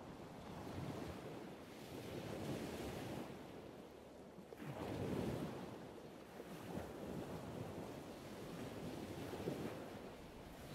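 Faint sea surf breaking along the rocky foot of a chalk cliff, rising and falling every few seconds, with some wind.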